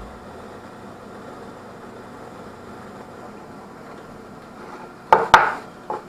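Benchtop drill press running steadily while a 3/8-inch Forstner bit deepens a counterbore in a hardwood block. About five seconds in, two sharp knocks and a smaller third one as the wood block is handled on the table.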